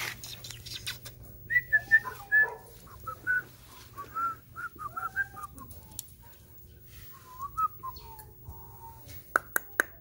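Young puppies whining and squeaking in short, high-pitched cries that bend up and down, many in a row from about one and a half to eight seconds in. A few sharp clicks come near the end.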